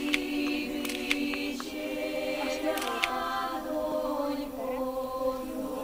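Vocal music: several voices holding long, slowly shifting notes, like a choir, with a few sharp clicks over it.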